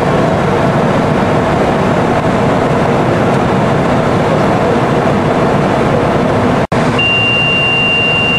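Steady, loud rush of airflow and engine noise on a Boeing 707 flight deck in flight. Near the end the sound drops out for an instant, then a steady high beep starts.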